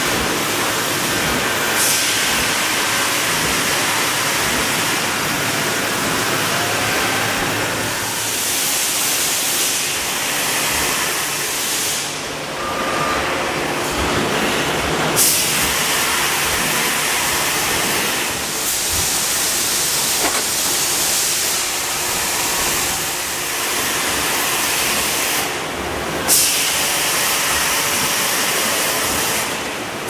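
Factory floor machinery: a steady mechanical din with a loud hiss that comes and goes in stretches of a few seconds, and a few short knocks.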